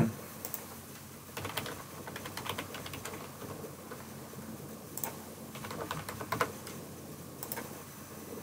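Computer keyboard typing in several short bursts of keystrokes, entering a user name and then a password.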